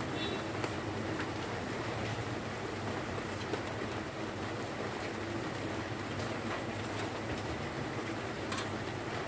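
Beef steak sizzling on a ridged tabletop grill plate: a steady crackling hiss with small pops, and a low hum underneath.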